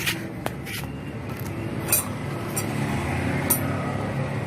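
Small metal parts of a portable sewing machine motor clicking and clinking, several sharp clicks a second or so apart, as its carbon brushes are fitted, over a steady low background hum.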